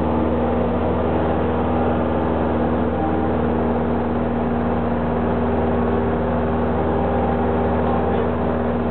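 Single-engine light airplane's engine and propeller droning steadily at cruise, heard from inside the cockpit.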